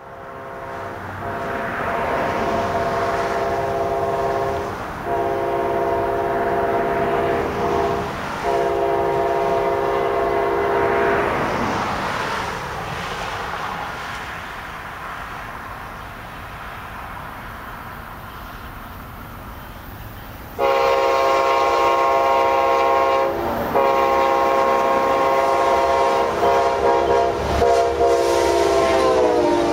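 Amtrak passenger train's diesel locomotive horn, a chord of several notes, sounded in long blasts as the train approaches: three in the first half, then after a pause two much louder ones. The pitch drops just as the locomotive passes, with the rumble of the engine and wheels coming up underneath.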